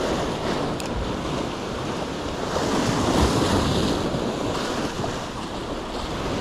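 Sea waves washing in, with wind on the microphone: a steady wash of noise that swells slightly about three seconds in.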